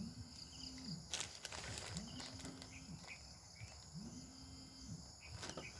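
A mobile phone vibrating with an incoming call: three low buzzes of about a second each, roughly two seconds apart, over the steady chirring of crickets. A few light handling clicks come about a second in and near the end.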